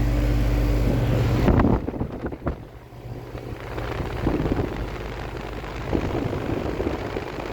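Goodman GSH13 2-ton heat pump running in heat mode, a steady compressor and fan hum. About a second and a half in, it drops suddenly to a much quieter, rougher hum with some wind noise.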